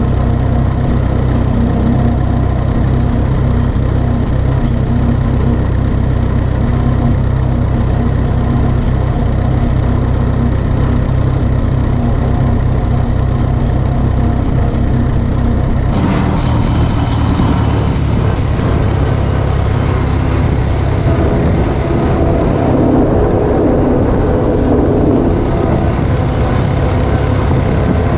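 Allis-Chalmers Model U tractor's four-cylinder engine running steadily while under way, a constant low drone; the sound changes character a little past halfway.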